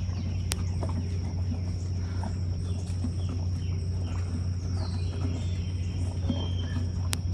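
Outdoor farm ambience: birds chirping over a steady low hum, with scattered soft knocks and a sharp click about half a second in and another near the end, around horses eating from feed buckets.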